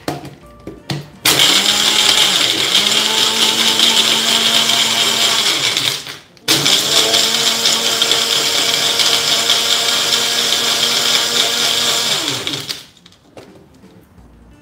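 Bullet-style personal blender grinding ginger with ice and water, in two runs of about five seconds each with a brief stop in between. The motor spins up at each start and winds down at each stop.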